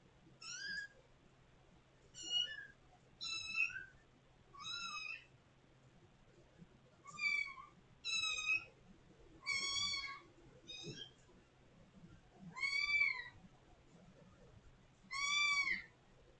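A kitten mewing, about ten short high-pitched meows a second or two apart, several of them rising and then falling in pitch.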